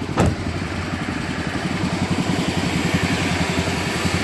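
Oldsmobile car engine idling steadily, just jump-started in the cold. A single sharp knock about a quarter second in.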